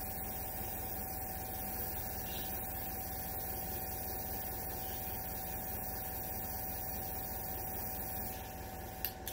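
Airbrush compressor with air tank running steadily, a constant motor hum with hiss, while air and thinners are sprayed from an airbrush into a cleaning pot to flush it out. A faint click near the end.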